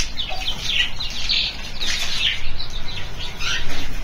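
A flock of caged parakeets chirping, with many short, quick chirps overlapping one another.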